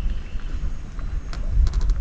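Wind rumbling and buffeting on the microphone, with a few light clicks in the last second.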